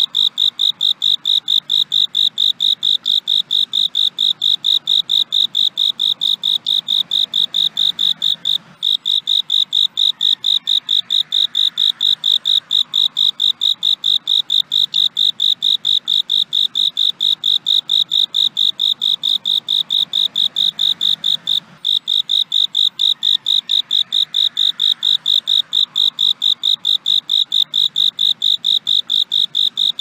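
A cricket chirping loudly and steadily in a high, even pulse, about three chirps a second, breaking off for an instant twice.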